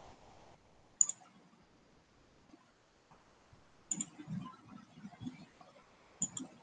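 Computer mouse clicking: single sharp clicks about a second in, near four seconds and near the end, over quiet room tone.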